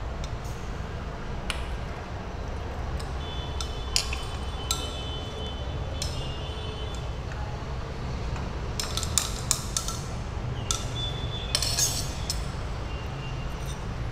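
A glass stirring rod clinks against the inside of a glass beaker of hot starch sol as it is stirred: scattered sharp clinks, some ringing briefly, coming more often in the second half. Under them runs the steady low rumble of the gas burner flame.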